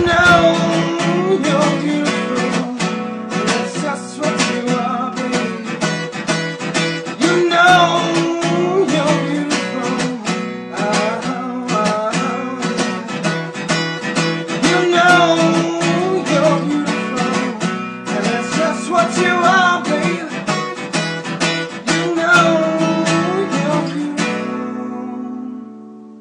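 Background music: a fast, rhythmic plucked and strummed acoustic guitar piece, fading out near the end.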